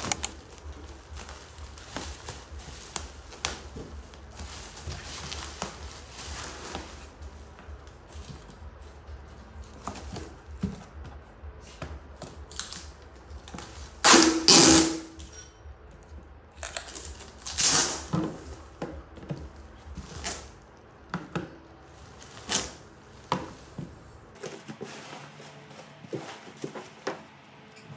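Plastic food storage containers being unpacked from bubble wrap and plastic wrapping: crinkling plastic with clicks and knocks of plastic lids and trays. There are louder bursts of crinkling about 14 and 18 seconds in.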